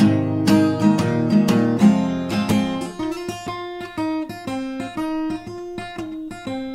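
Acoustic guitar playing an instrumental blues passage: strummed chords for about three seconds, then quieter single picked notes.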